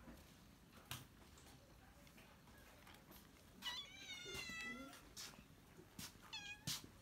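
Domestic cat meowing twice, from cats waiting to be fed: a long, wavering meow of over a second about halfway through, then a shorter one near the end. A few faint sharp clicks sound in between.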